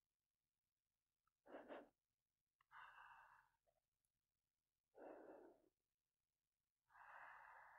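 A woman's soft breaths close to a binaural dummy-head microphone: four faint, slow breaths, one roughly every one and a half to two seconds.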